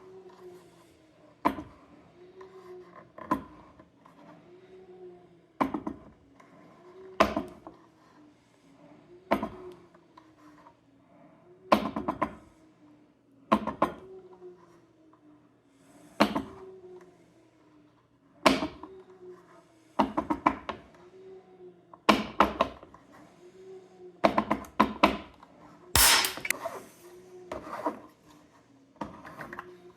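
Sharp clicks and knocks from a hand-operated tensile test fixture being worked, one every second or two and coming faster near the end. A faint low tone rises and falls in a steady cycle underneath.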